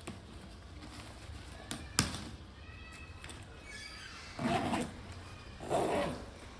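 Bag zip being run along its teeth: two short rasps a little over a second apart, after a sharp click about two seconds in.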